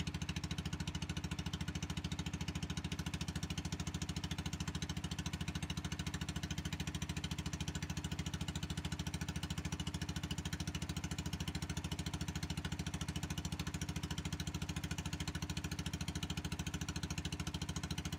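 Small wooden boat's engine running steadily at low speed, a rapid even pulsing.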